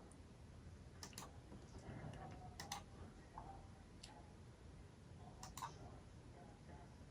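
Near silence: faint room tone with a few short, sharp clicks, mostly in close pairs, about every one and a half seconds.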